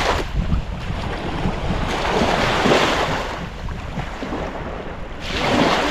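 Small waves lapping onto a sandy river shore, swelling a little after two seconds in and again near the end. Wind buffets the microphone with a low rumble.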